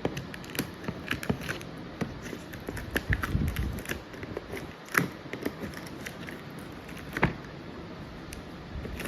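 Unboxing handling noise: hands moving packaging and parts of a parking sensor kit, with scattered taps, clicks and rustles and two sharper clicks about five and seven seconds in.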